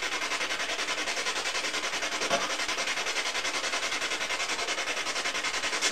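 Steady static hiss with a fast, even flutter, and a faint short sound about two and a half seconds in.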